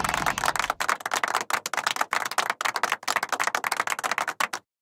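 Cartoon sound effect: a rapid run of light clicks, like typing on a typewriter, that cuts off abruptly into silence near the end.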